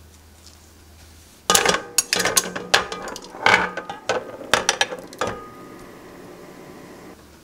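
Metal kitchen tongs clinking and clanking against a glass jar and the side of a metal pot as the jar is lifted out of its hot-water sterilising bath: a quick string of sharp clinks with a short ringing after them, starting about a second and a half in and stopping after about five seconds.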